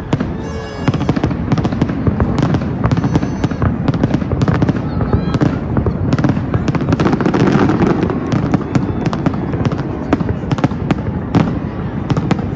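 Fireworks going off in rapid succession: many overlapping bangs and crackles over a continuous rumble, getting louder about a second in.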